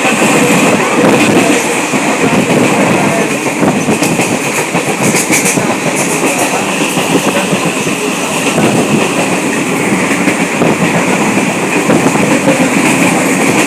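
Passenger train running along the track: a steady loud rumble of wheels on rails, with a few sharper clicks about a third of the way in.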